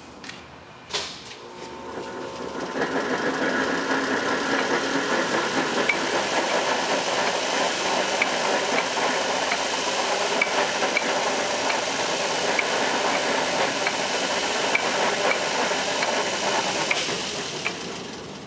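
LeBlond NK heavy-duty engine lathe running, its large four-jaw chuck turning on the variable DC drive, with a steady mechanical rattle and hiss. A sharp click comes about a second in. The running noise builds over the next couple of seconds as the spindle comes up to speed and dies away near the end as it slows.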